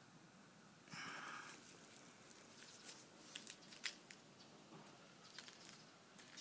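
Near silence, broken by a brief soft rustle about a second in and a scattering of faint clicks and ticks after it.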